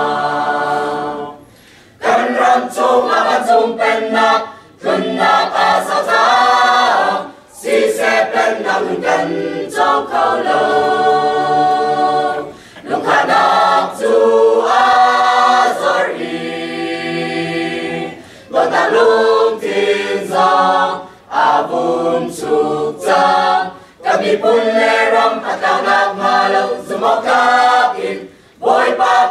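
Mixed choir of men and women singing a cappella, in phrases broken by short pauses every few seconds.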